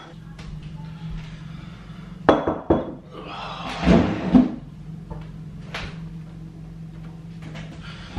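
Kitchen handling sounds as a person settles at a counter with a bowl and mug: a couple of knocks, then a louder dull thunk about halfway, and a light click later, over a steady low hum.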